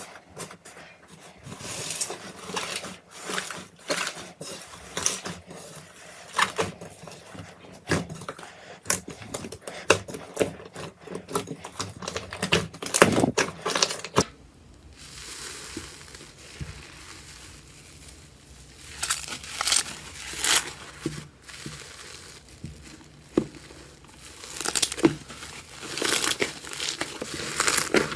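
Slime being squished and pressed, giving irregular crackling, popping clicks. The sound changes character about halfway through.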